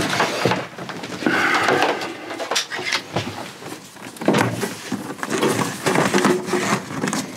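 Hands-on handling noise: irregular knocks, clicks and rustling as electrical cables are sorted and pushed into place at the back of a wooden cabinet.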